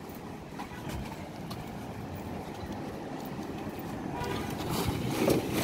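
Street ambience: a steady low rumble of traffic, growing louder in the last second or so.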